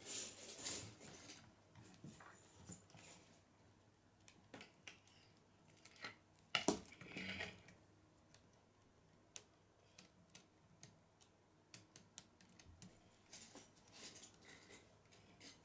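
Plastic K'nex rods and connectors being handled and snapped together: scattered light clicks and rattles, with a louder cluster of clicks about halfway through.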